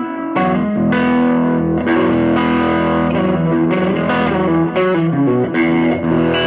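Electric guitar played through an Audio Kitchen Little Chopper tube amp head and Fryette Power Station into a small cabinet with a 10-inch Celestion Greenback speaker, with a little overdrive engaged. It plays a run of strummed chords that are left to ring.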